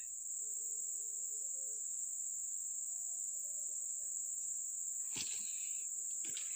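Steady high-pitched drone of insects. Near the end a few brief rustles and soft knocks as someone moves through wet undergrowth.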